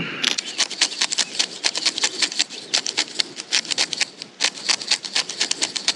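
Pepper grinder being twisted over a salad: a fast, uneven run of crisp grinding clicks.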